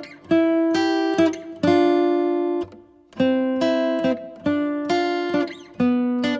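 Background music: an acoustic guitar strikes chords one after another, each ringing and fading before the next, with a short gap about three seconds in.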